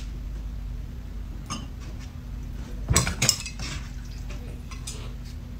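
Chopsticks and a plate clinking as peeled boiled eggs are picked up and served: a few separate knocks, the loudest pair about three seconds in.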